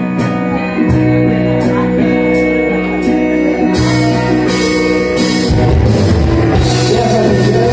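Live band playing a song, with guitar to the fore over a steady bass line; about halfway through, cymbals and then the drums come in and the beat fills out.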